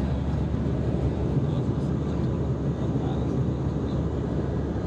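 Jet airliner cabin noise in cruise flight: a steady low rumble of engines and rushing air heard through the fuselage.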